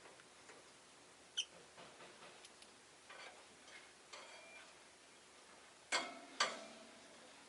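Rosy-faced lovebird giving short, sharp chirps. There is one about a second and a half in, then softer scattered chirps, and near the end two louder chirps in quick succession.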